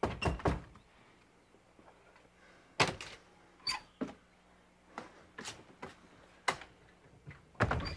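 A door opening and footsteps on a hard floor: a string of short, sharp knocks, mostly a second or less apart.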